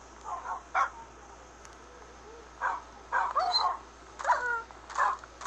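A dog giving a string of short yelps and whines, with pitch that slides up and down, in bursts separated by short pauses.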